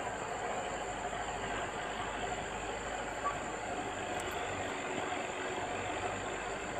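Steady background noise with a faint hum, unchanging throughout, with no distinct knocks or splashes standing out.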